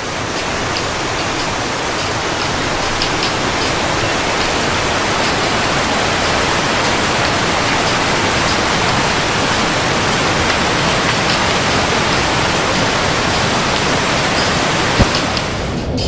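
Whitewater stream rapids rushing over rocks: a loud, steady rush of water, with a single sharp knock near the end.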